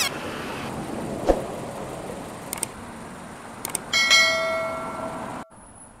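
Subscribe-button animation sound effect: two sharp mouse-style clicks, then a notification bell ding that rings for about a second and a half and cuts off abruptly. A soft knock comes about a second in, over faint background noise.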